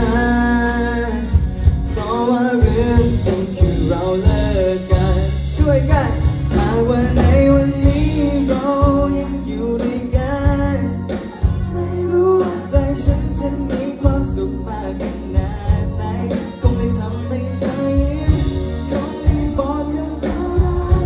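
Male singer singing live into a microphone with a band of electric bass guitar and drums, heard through the concert loudspeakers.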